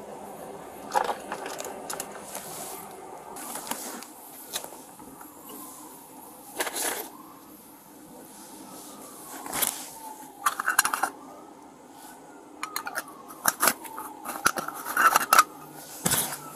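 Rustling, scraping and clicking of a car interior being searched by hand: gloved hands brushing over leather seats and objects being moved, in irregular bursts that grow busier in the second half. A faint wailing tone rises and falls in pitch behind it.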